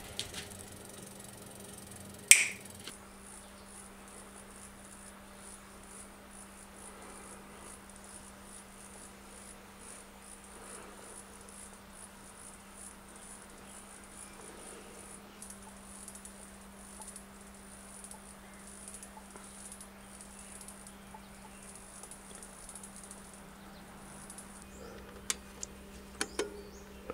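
Faint steady background with a low hum, broken by one sharp click about two seconds in. Near the end a few small clicks come from a multitool being turned on a bicycle's front derailleur.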